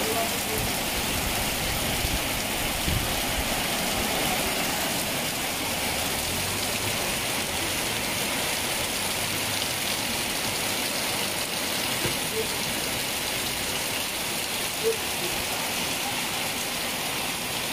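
Heavy rain falling steadily on a street, an even rushing hiss, with a few brief louder taps of drops.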